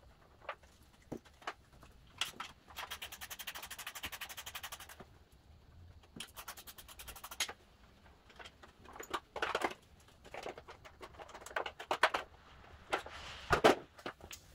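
Ratchet wrench clicking in two quick runs as the engine shroud bolts of a Briggs & Stratton riding mower engine are backed out, followed by irregular metallic knocks and rattles of the bolts and shroud being handled.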